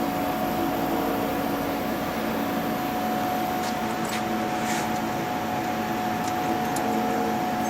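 Steady machine hum of a powered-up Haas Mini Mill CNC vertical mill standing idle, with a few constant tones and some faint light ticks.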